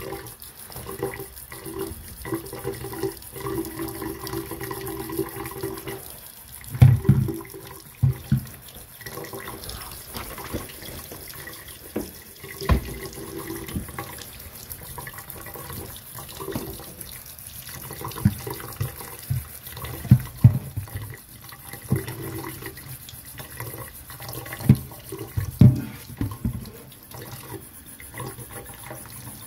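Kitchen tap running onto a freshly welded steel part in a stainless steel sink, cooling it: a steady splash of water on metal, broken by several loud clunks as the steel part is moved and knocked against the sink.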